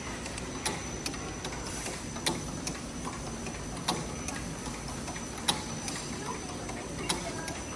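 Factory machinery clicking sharply about every one and a half seconds, with fainter ticks between, over a steady hum and a thin high whine.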